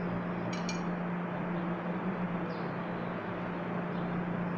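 Workshop background with a steady low machine hum, and two quick metallic clinks of a hand tool against metal parts about half a second in.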